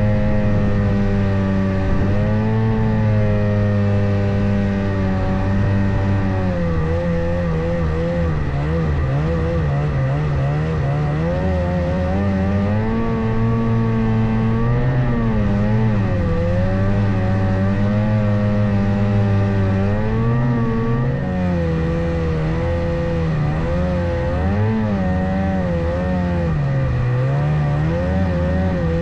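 Ski-Doo Skandic snowmobile engine running hard under load, its revs rising and falling again and again as it pushes through deep snow.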